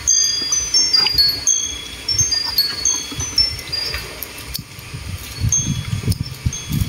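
Wind chime tinkling: a steady scatter of high, overlapping ringing notes, with soft low knocks underneath.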